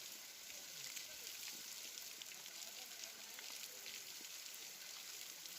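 Waterfall's falling water making a steady hiss of spray, with no breaks.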